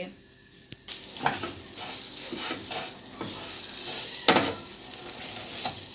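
Vermicelli frying in butter in a non-stick pan, sizzling with a steady hiss. From about a second in, a wooden spatula stirs the strands, scraping against the pan with irregular strokes; the loudest comes about four seconds in.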